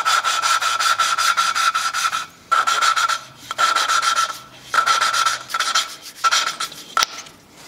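A valve being hand-lapped onto its seat in an opposed-twin engine's cylinder head: a wooden lapping stick spun back and forth between gloved palms, making a fast gritty rubbing with a thin squeal. The rubbing comes in about six bouts separated by short pauses, with a sharp click near the end.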